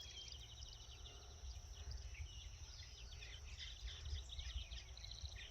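Small birds chirping and twittering in many short, quick calls, over a steady high insect buzz and a low rumble of wind on the microphone.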